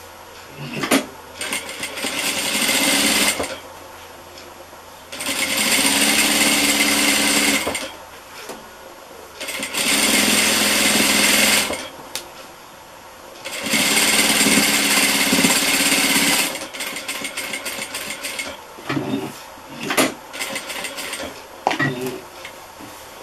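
Industrial sewing machine stitching binding onto fabric in four runs of two to three seconds each, stopping briefly between runs. Near the end come a series of short clicks and rustles as the fabric is handled.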